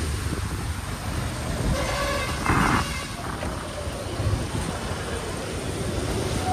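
Motorcycle riding slowly in traffic: engine and road rumble with wind buffeting the microphone. A short vehicle horn sounds about two seconds in.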